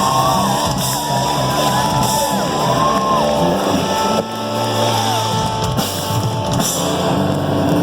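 Rock band playing live, an instrumental passage with drum kit and electric guitars, a high guitar line gliding up and down in bends.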